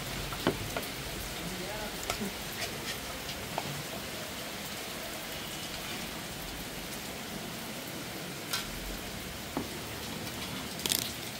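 Steady rain falling, an even hiss, with scattered light clicks.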